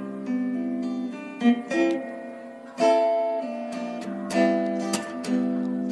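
Background music: an acoustic guitar playing strummed and plucked chords, with a fresh chord struck every second or so.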